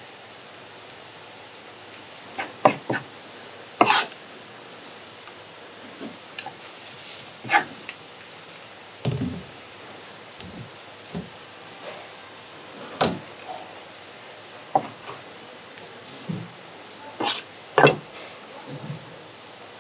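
Irregular knocks and taps of a knife and fish pieces on a plastic cutting board as a sea raven (scorpion fish) is cut up and gutted, over a steady low background noise.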